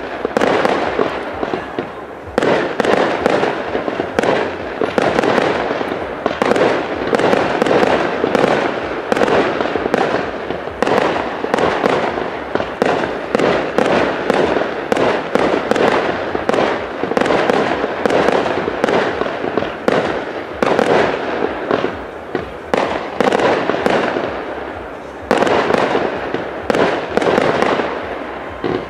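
Fireworks display: aerial shells bursting in rapid succession, a dense, near-continuous run of bangs and crackles. The loudness briefly drops off near the end, then the bursts pick up again.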